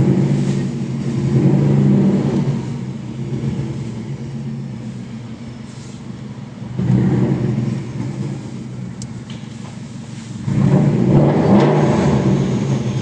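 Subaru Impreza GC8's turbocharged flat-four engine, fitted with a custom exhaust, pulling away and accelerating in three loud surges: at the start, about seven seconds in, and again near the end. It is heard from inside the cabin.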